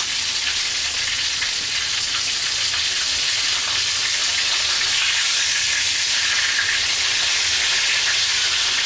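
Breaded pork chops frying in hot grease in a pan: a steady sizzle.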